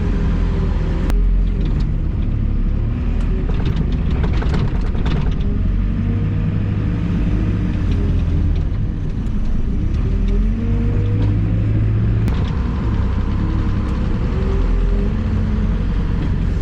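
Diesel engine of a loader running and revving up and down as it lifts silage into a feeder wagon, with a couple of sharp knocks.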